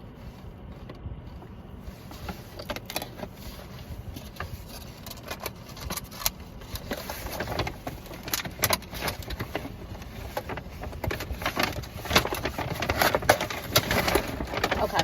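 A person handling a takeout container and eating roasted fingerling potatoes: short clicks, crinkles and chewing that grow busier and louder in the second half, over a steady low rumble.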